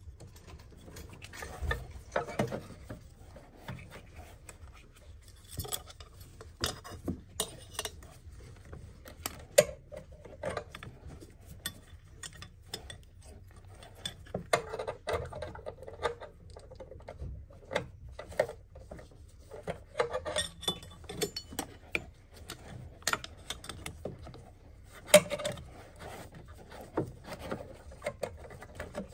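Irregular metallic clicks, clinks and knocks of hands and tools working on parts in a car's engine bay, with a few sharper knocks now and then.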